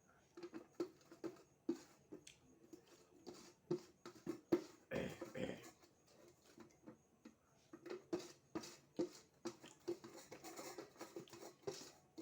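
A person chewing and smacking food close to the microphone: irregular short clicks and mouth noises, with a louder stretch about five seconds in.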